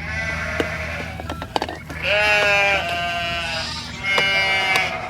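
Sheep bleating, repeated wavering bleats with short gaps between them, and a few sharp clicks about a second and a half in.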